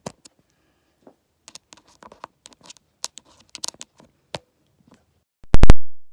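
Handling noise as a microphone plug and adapter are fitted into a smartphone: scattered clicks, scratches and rustles, then a few very loud pops near the end as the plug goes into the port.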